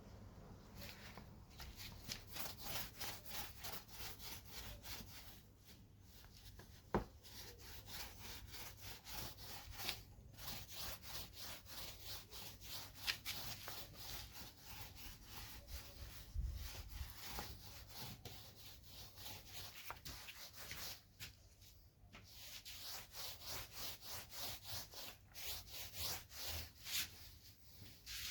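Wooden table surface being sanded by hand in quick, rhythmic back-and-forth strokes, with a few short pauses and one sharp knock about seven seconds in.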